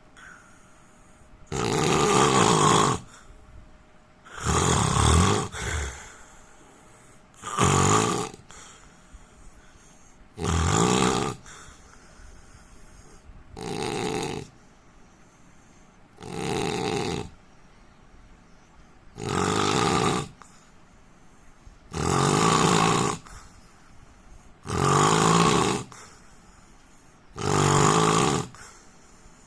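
A man snoring in a steady rhythm: about ten snores, one roughly every three seconds, each lasting about a second.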